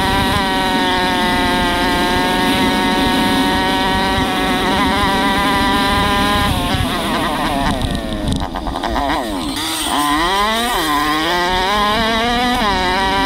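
A 125cc four-stroke dirt bike engine under way at steady revs. About seven seconds in the revs drop off, then climb again in a few quick rises before settling back to a steady pull.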